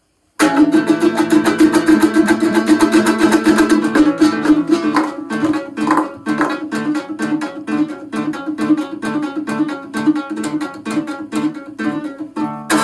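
Kyrgyz komuz, a three-string lute, strummed in a fast, driving rhythm of rapid strokes. After about four seconds the strumming becomes sparser, with more separate strokes.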